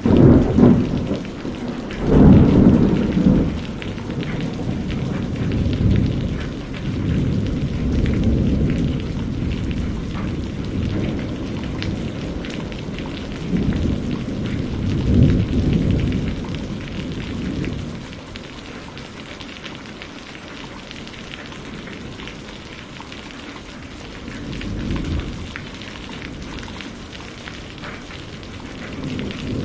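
Steady rain with rolls of thunder rumbling again and again over it; the loudest rumbles come at the start and about two seconds in, and the storm eases to mostly rain in the second half.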